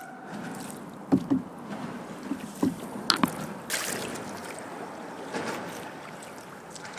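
Kayak paddling: paddle blades dipping and splashing in the water, with a few light knocks scattered through.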